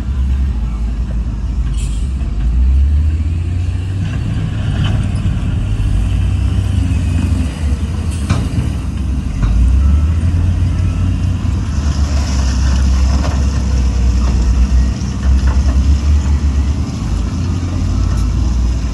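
Heavy diesel earthmoving machinery running with a steady low rumble that swells at times, with a few metallic knocks and a hiss about twelve seconds in.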